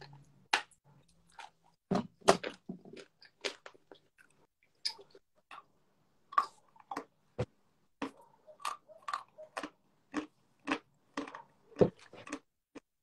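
Two people biting and chewing dry chunks of white edible clay close to the microphone: a long run of short, sharp, irregular crunches.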